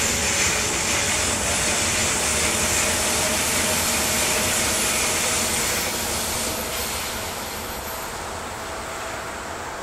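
Electric double-deck passenger train passing on the rails: a steady rush of wheel and rail noise that fades from about six seconds in as the train draws away.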